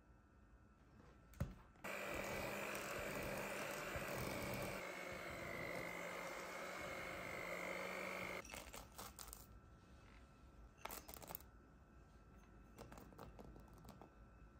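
Electric hand mixer beating flour into cake batter in a glass bowl. It runs steadily with a motor whine from about two seconds in, shifts slightly in pitch partway, and stops after about six seconds. A sharp click comes just before it starts, and a few light knocks follow after it stops.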